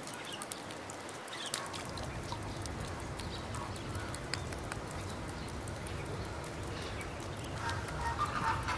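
Outdoor ambience: scattered faint clicks and ticks at irregular intervals over a low rumble that sets in about two seconds in, growing a little louder near the end.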